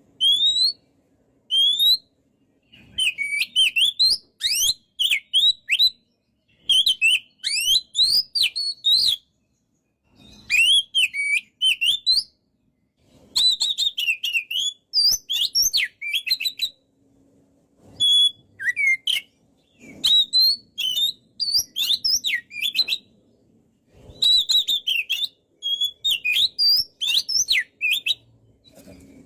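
Oriental magpie-robin (kacer) singing in repeated bursts of quick, varied whistled notes that glide up and down, with short pauses between phrases.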